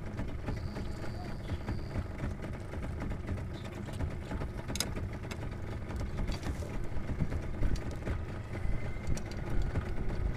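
A small boat's engine idling with a steady low rumble, with a few light clicks from handling a landing net.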